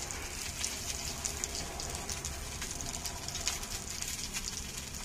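Masala-coated tilapia frying in oil on a flat iron tawa over a gas stove: a steady sizzle with scattered crackles, over a low rumble.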